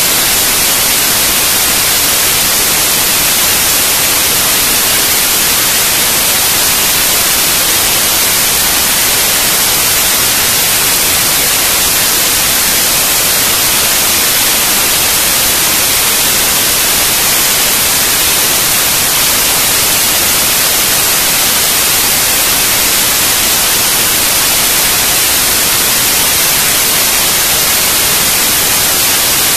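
Loud, steady hiss of static, even and unchanging, with nothing else heard.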